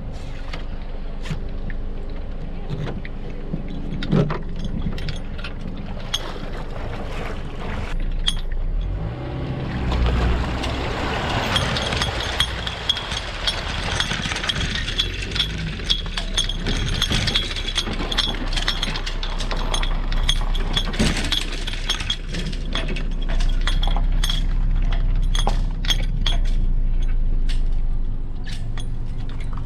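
Metal fittings and rigging of a Hobie Cat 16 catamaran rattling and clinking in many sharp clicks as the boat is hauled out on its trailer. A rushing noise sets in about ten seconds in, and a steady low rumble comes later.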